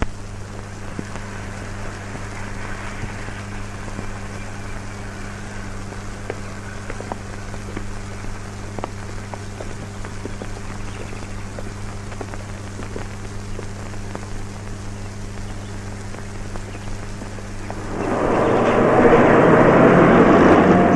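Worn film soundtrack hiss with a steady low hum and scattered crackles. About eighteen seconds in, a loud rush of traffic noise swells as a motor vehicle passes.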